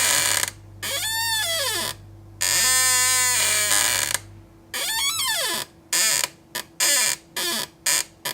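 Office chair squeaking and creaking as it is worked: long pitched squeaks that rise and fall, one held steady in the middle, then a quick run of short squeaks and clicks in the last few seconds.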